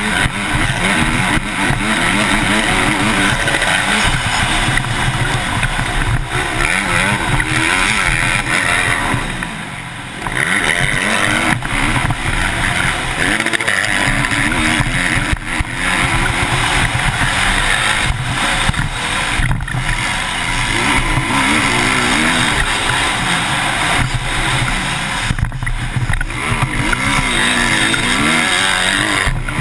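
Motocross dirt bike engine heard close up from the rider's helmet camera, revving hard and rising and falling in pitch through the gears at racing speed. The engine note drops briefly about ten seconds in, then picks up again.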